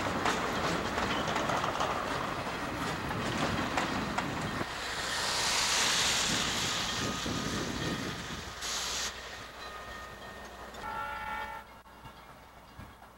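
Freight train boxcars rolling past, the wheels clicking over the rail joints, with a hissing swell in the middle. The sound fades toward the end, where a short horn tone sounds faintly.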